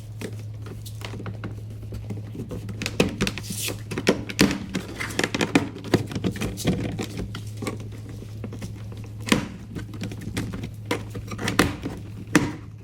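Plastic window switch panel of a Jeep Compass door being pried loose: a run of plastic clicks, scrapes and creaks, with several sharper snaps as the retaining clips let go, over a steady low hum.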